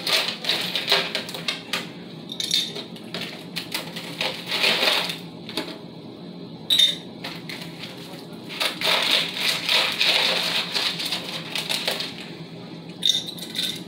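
Fast-food meal of burger and fries being unwrapped, handled and eaten close to the microphone: irregular bursts of crinkling and clicking, densest about a second in, around four to five seconds in, and again from about eight and a half to eleven seconds.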